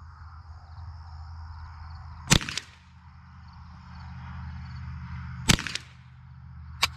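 Three shots from a Ruger 10/22 .22 rimfire rifle, each a sharp crack: the first two about three seconds apart, the third a little over a second later. They are part of a five-shot group fired to check the zero of a newly mounted scope.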